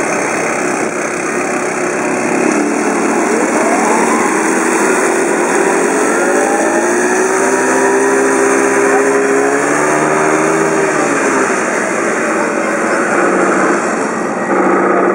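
Small single-cylinder four-stroke petrol engine of a 1:6 scale Stuart tank model, a Honda GX31, revving up about three seconds in and running at high speed, then easing off a few seconds before the end.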